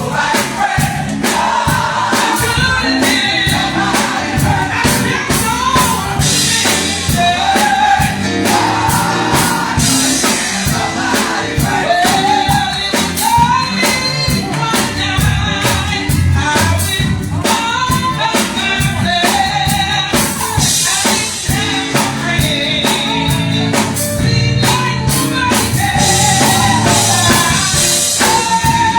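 Live gospel song: singing with sliding, drawn-out notes over a band with a steady drum beat.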